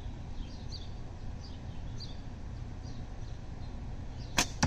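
Faint bird chirps repeat in the background; about four seconds in, one sharp crack of a slingshot shot, its Falcon 0.75 white latex bands snapping forward to launch an 11 mm steel ball, followed at once by a smaller knock.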